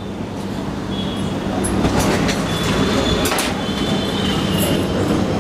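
Street traffic noise swelling, with a faint high-pitched squeal and a few sharp clicks over it, like a heavy vehicle passing.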